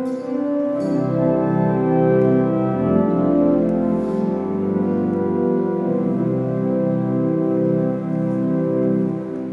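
Organ playing slow, sustained chords, beginning to die away at the very end.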